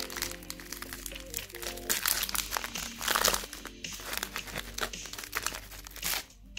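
Foil-lined plastic wrapper of a wafer bar crinkling as fingers tear and peel it open, loudest about two to three and a half seconds in. Soft background music plays underneath.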